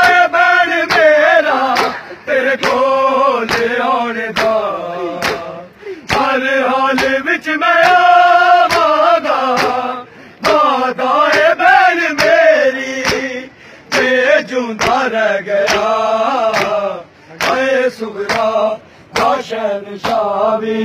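A crowd of men chanting a Punjabi noha lament in unison, with a steady beat of sharp slaps from hands striking bare chests (matam) keeping time.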